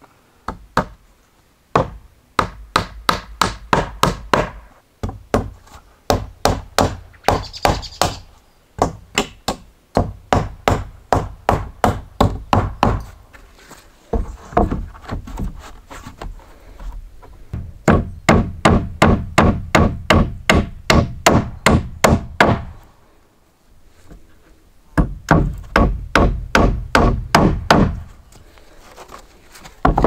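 Hammer driving nails into wooden roof planks: runs of quick, sharp strikes, about four a second, broken by short pauses.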